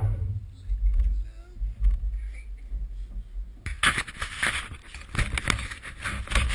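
Wind buffeting the microphone with a low rumble. A little past halfway a dense, scratchy crackle of many clicks and scrapes sets in.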